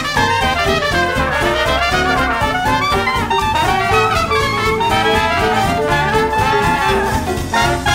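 Background music: an upbeat jazz instrumental led by brass over a steady beat.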